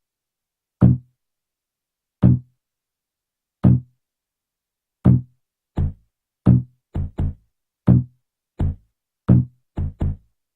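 Low, pitched bass-drum-like hits made from a cheap coffee can drummed on, then slowed and processed into a bass sound. They come one every second and a half at first, then quicken into a syncopated pattern with close pairs of hits from about halfway in, with silence between the hits.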